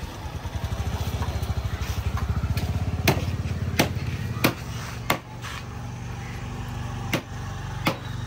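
Small motorcycle engine idling with a fast, even pulse that settles into a steadier hum. About three seconds in, six sharp knocks come at uneven spacing.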